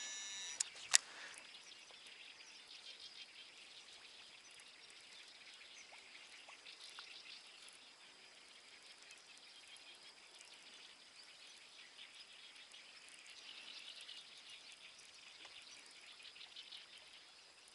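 Faint outdoor ambience: a soft, steady chirring of small calling creatures, with two sharp clicks about half a second and a second in.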